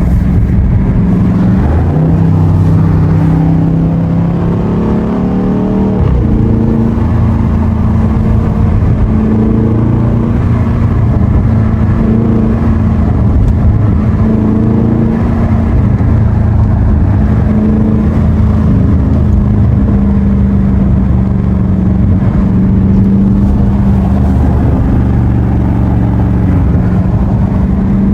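A 6.4-litre 392 HEMI V8 with its mid-muffler deleted, droning steadily as the car drives, heard from inside the cabin. The pitch dips about two seconds in, then climbs and holds a little higher from about six seconds on.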